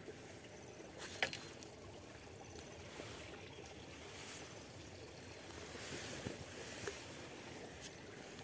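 Faint steady outdoor background noise with a sharp click about a second in and a few lighter ticks later, as fishing tackle is handled.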